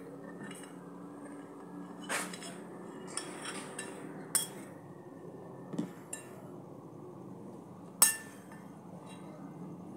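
Metal spoon clinking against a ceramic bowl during eating: about eight scattered clinks, the sharpest about eight seconds in.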